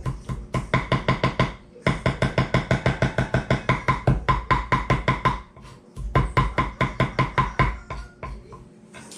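Kitchen knife chopping fresh herbs fast on a wooden chopping block, about six or seven knocks a second. The chopping comes in three runs, with brief breaks about two seconds in and just past the middle, and stops shortly before the end.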